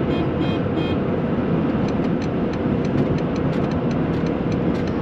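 Steady road and engine rumble inside a vehicle cab cruising at motorway speed, alongside a passing lorry. A quick run of short high beeps sounds in the first second, then faint scattered ticks.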